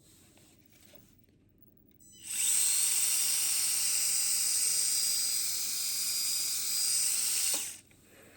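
The Axial SCX30 micro crawler's small electric motor and plastic gears running: a steady high-pitched whine that starts about two seconds in, lasts about five seconds and cuts off suddenly.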